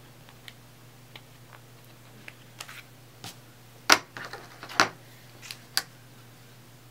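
Desk crafting handling noises: light clicks and rustles of a plastic-sleeved sticker sheet, then a clear acrylic ruler picked up and laid on a paper layout on a cutting mat, with two loud knocks about four and five seconds in and a lighter one just before six seconds.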